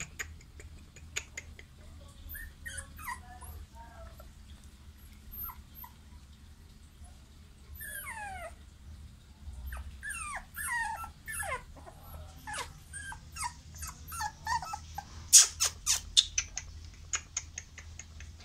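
American Pit Bull Terrier puppies whining and whimpering in a wire crate, many short squeaky cries that rise and fall in pitch. A burst of sharp clicks comes about fifteen seconds in.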